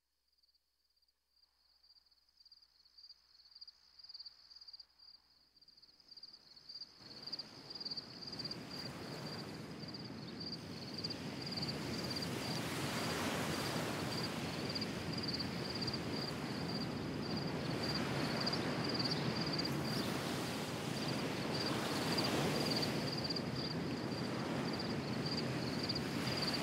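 Ambient percussion soundscape: a steady high, rapidly pulsing chirp like insects, with scattered soft taps in the first few seconds. A rain-like hiss swells up from about seven seconds in and settles into a steady wash.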